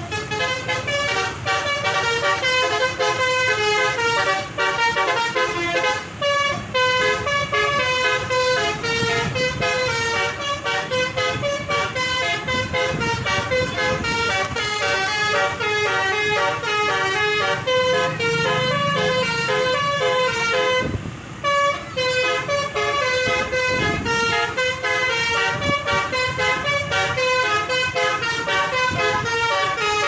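Toga Trans bus's basuri telolet horn, a set of multi-tone air horns, playing a fast song melody note after note without a break, except for a short pause about 21 seconds in.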